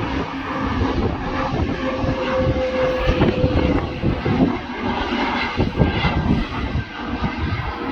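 Engines of a Eurowings jet airliner on approach to land, a steady drone with a faint high whine in the middle.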